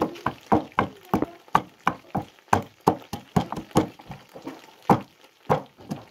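A wooden pestle pounds garlic cloves in a small wooden mortar, making a steady run of dull knocks about three a second. The strokes ease briefly about four seconds in.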